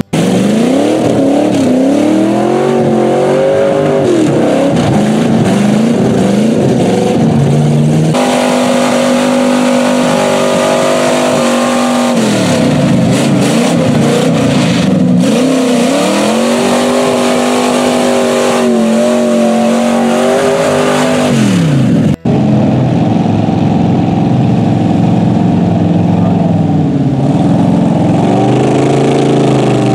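Lifted mud trucks' engines revving hard as the trucks churn through a mud bog, the engine pitch climbing and dropping again and again. The sound changes abruptly twice, about 8 and 22 seconds in, as one truck's engine gives way to another's.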